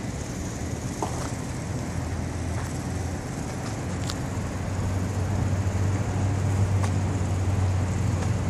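Street traffic noise, with a motor vehicle's engine running close by as a steady low hum that grows louder over the second half.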